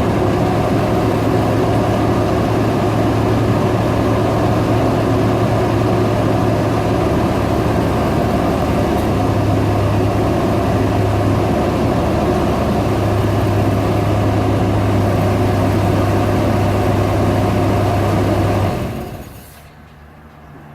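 1990 GMC Sonoma's 4.3-litre throttle-body V6 idling, with its cooling fan loudest: "nothing but fan." The engine is shut off near the end and the sound dies away.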